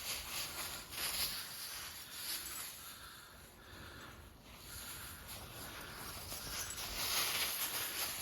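Dry fallen leaves rustling and crunching as dogs move through a big leaf pile. The sound comes in uneven surges, louder near the start and again about seven seconds in, quieter in between.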